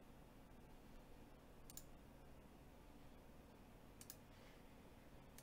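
Near silence with faint computer mouse clicks: one about two seconds in, one about four seconds in and another at the very end, over a faint low hum.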